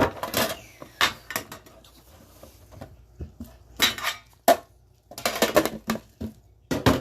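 Short clicks, taps and scrapes of a sealed trading-card box being handled and opened, coming irregularly with short pauses, with one sharp knock about halfway through.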